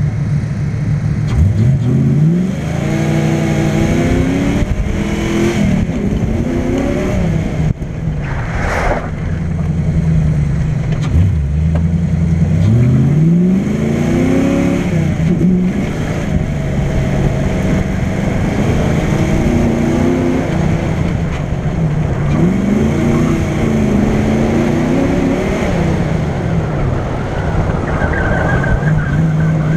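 Ford Mustang's engine driven hard on an autocross run. It idles at first, then launches about a second and a half in and revs up and down again and again as the car accelerates and slows through the course, heard from outside at the cowl with wind noise.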